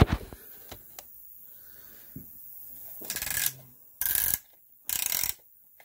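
Band-type piston ring compressor being adjusted with its key around a piston: a sharp click at the start, a few faint ticks, then three short bursts of metallic scraping about a second apart as the spring-steel band is worked.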